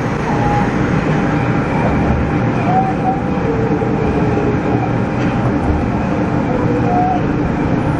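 Nagoya Meijo Line subway train (2000 series) pulling out of the station: steady running noise of the motors and wheels on the rails, heard from the driver's cab, with a few faint short whines.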